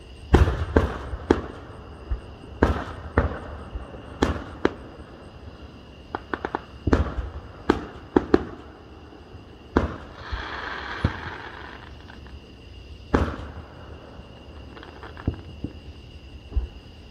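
Aerial fireworks shells bursting in an irregular series of sharp bangs, several in quick clusters, with a second or so of hissing noise about ten seconds in.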